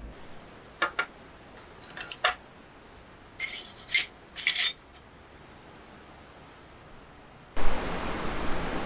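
Hard charcoal sticks in a glass food container give a few sharp clinks as they are set down and handled, knocking against each other and the glass. Near the end a loud, steady rushing noise starts abruptly.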